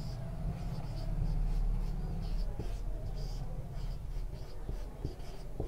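Marker pen on a whiteboard, writing handwriting in short strokes, each one a brief squeak and scratch, over a steady low hum.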